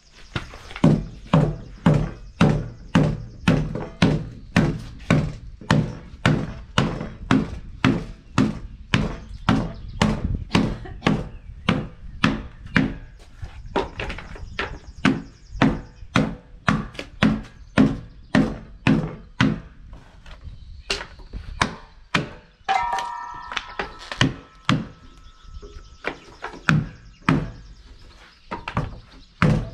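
Repeated hammer blows on a timber, knocking out the wood left between saw kerfs for a scarf joint. The blows come steadily at about two a second, then thin out to scattered strikes in the last third.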